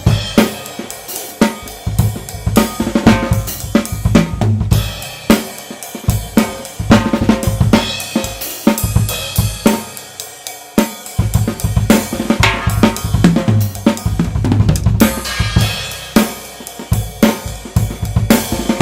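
Tama Swingstar drum kit played continuously: snare, bass drum, hi-hat and Meinl cymbals, picked up by a single Blue Yeti USB microphone. The bass drum drops out for about a second just past the middle, then the groove resumes.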